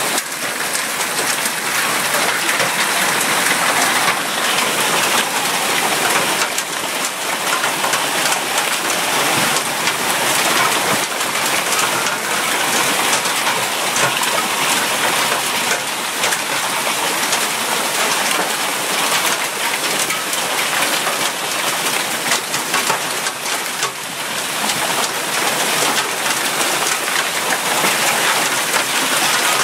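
Severe hail, penny- to quarter-sized stones with a few near golf-ball size, coming down hard with heavy rain in a thunderstorm: a steady, dense hiss made of countless small impacts.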